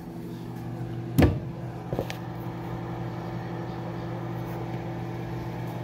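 Steady low hum of a kitchen appliance running, with a sharp knock about a second in and a lighter click a moment later.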